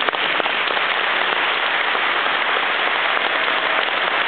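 A large audience applauding steadily, a dense, even clapping.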